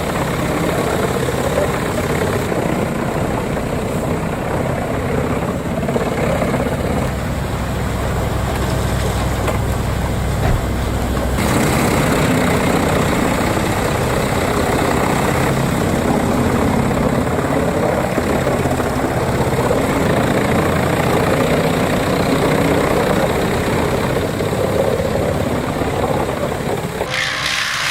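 A heavy machine's engine running steadily and loudly. About eleven seconds in, the sound shifts, with less deep rumble and more hiss.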